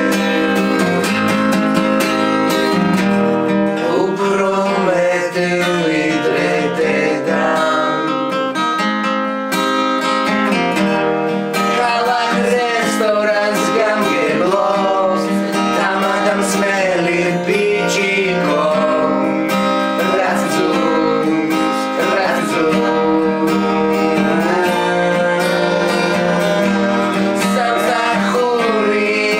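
Acoustic guitar strumming a song accompaniment, with a melody line that bends and wavers in pitch over the chords.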